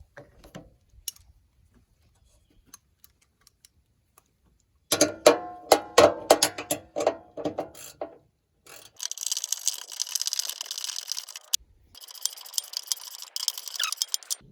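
Hard metal clanking, a cluster of sharp ringing knocks, then two long runs of fast, dense clicking typical of a ratchet wrench being worked, with a short break between them.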